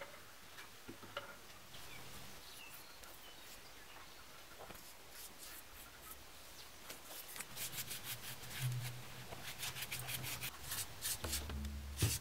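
Small paintbrush rubbing paint onto a rough plastered wall: a run of short brushing strokes that come quicker and closer together in the second half.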